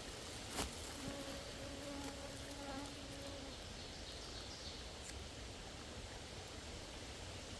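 A flying insect, a bee or fly, buzzing with a steady hum for about two and a half seconds, after a single sharp click about half a second in.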